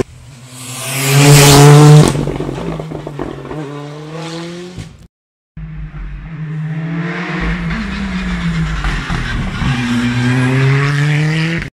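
Hyundai i20 R5 rally car's 1.6-litre turbocharged four-cylinder at full throttle, loudest as it passes close about a second in, its note climbing and dropping through quick gear changes with a few sharp cracks. After a cut it is heard again through a hairpin, revs climbing near the end.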